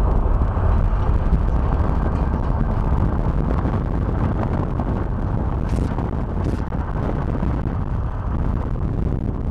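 Wind buffeting the microphone and road noise of a moving car, a steady low rush.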